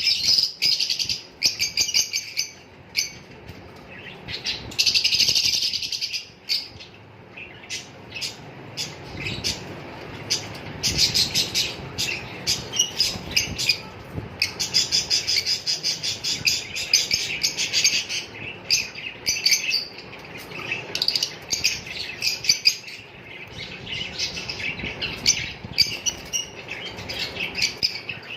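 A group of small pet parrots chirping and chattering: a busy stream of rapid, high chirps with no let-up.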